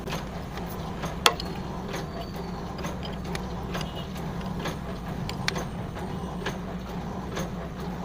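Wrench tightening a fuel-line bleed fitting on an Isuzu 4HF1 diesel engine after bleeding air from the fuel system: a few scattered metal clicks, the sharpest about a second in, over a steady low hum.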